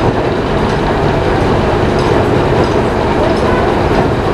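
Frick steam traction engine running and belt-driving a 1930s Frick sawmill: a loud, steady mechanical running noise with faint intermittent ticks.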